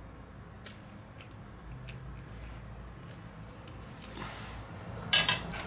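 Small hand tools working on a smartphone: a few light clicks spread out, a soft scrape about four seconds in, then a short, louder burst of clicking and scraping near the end, over a steady low hum.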